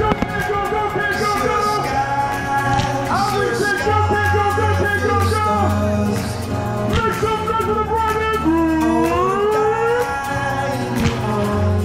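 Music: a song with a gliding sung melody over a pulsing bass line, with a few faint sharp pops in the mix.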